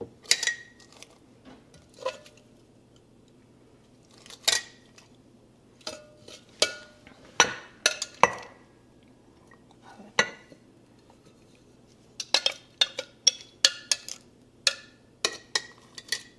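Metal tongs clinking against a glass mason jar and a glass mixing bowl while pickled jalapeños, carrots and onions are packed into the jar. Scattered clinks, some with a short ring, sparse at first and coming quickly in the last few seconds.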